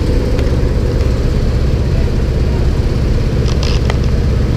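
Propeller aircraft's engine droning steadily, heard from inside the cabin, with a brief cluster of clicks or rattles about three and a half seconds in.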